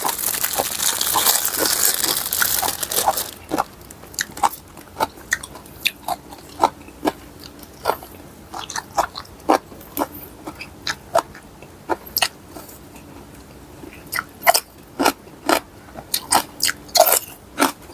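Close-up chewing and biting of crunchy food, papaya salad eaten with raw vegetables, in irregular sharp crunches about one to three a second. A loud rustle-like noise fills the first three seconds.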